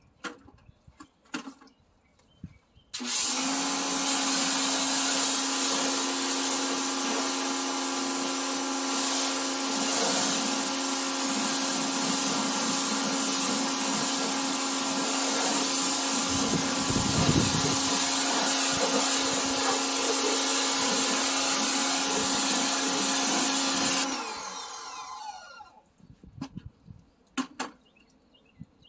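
Pressure washer running for about twenty seconds while pre-rinsing a car: a steady motor hum under the hiss of the water spray. It starts suddenly a few seconds in and winds down with falling pitch a few seconds before the end.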